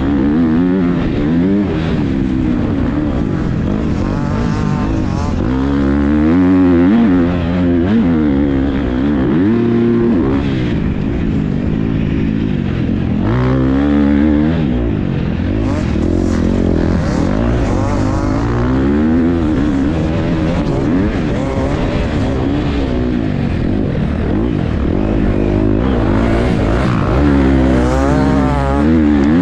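Motocross bike engine heard from on the bike, revving up and dropping back over and over as the rider accelerates and backs off through a rutted sand track.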